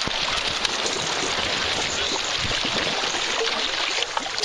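Icy water splashing and churning close to the microphone as a person thrashes in it, steady throughout and easing slightly near the end.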